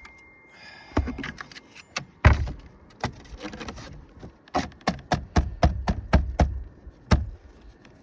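Sharp knocks, cracks and thumps of brittle asphalt roof shingles being worked loose and handled, with a quick run of knocks in the middle.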